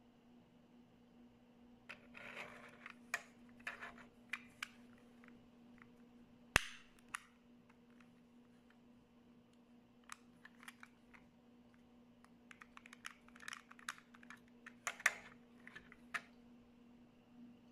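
Scattered plastic clicks and light rustles from a long-nose refillable gas lighter being handled and set down, with one sharp, loud click about six and a half seconds in. A faint steady hum runs underneath.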